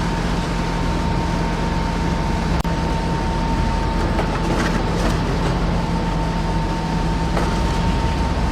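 Steady mechanical running noise with a constant high whine over a lower hum, and a few faint clicks.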